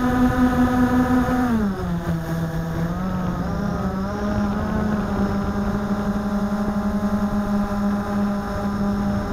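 Blade 350 QX quadcopter's brushless motors and propellers humming, heard from the camera mounted on the drone. About a second and a half in, the pitch drops as the motors slow, then it settles into two close, steady pitches as the motors run at slightly different speeds.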